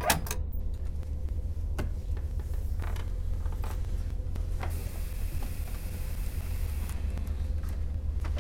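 A door handle is turned with a sharp latch click at the start, followed by a few scattered creaks and knocks, over a steady low rumble.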